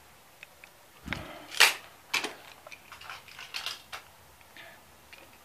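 Small toy cars and trucks being handled and set down, giving a string of sharp clicks and clatters. The loudest knock comes about a second and a half in.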